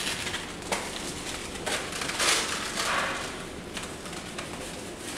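Plastic Stormtrooper thigh armour pieces being handled and fitted over a Lycra suit: light clicks and knocks of the plastic, with a longer scraping rustle a little after two seconds in.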